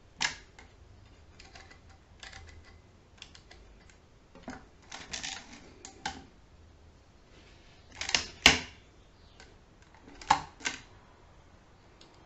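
Schubert DRV mechanical calculator clicking and clacking as its carriage is stepped along and its mechanism worked during a division. Irregular sharp clicks and short clatters, loudest in a double clack about eight and a half seconds in.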